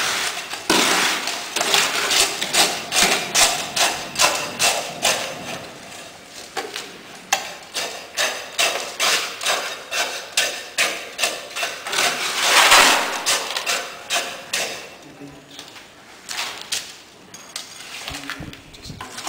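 Steel tamping rod being driven down into fresh concrete in the metal cone of a Vee-Bee consistometer, compacting a layer with repeated strokes: a steady run of knocks at about two a second. A louder burst of noise comes about twelve seconds in, and the knocks thin out near the end.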